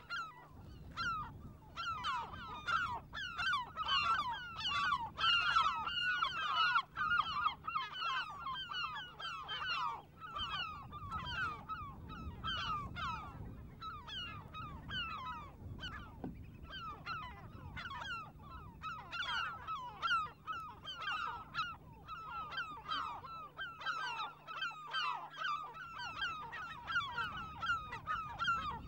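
A flock of coastal birds calling over one another in a dense, unbroken chorus of short calls, several a second.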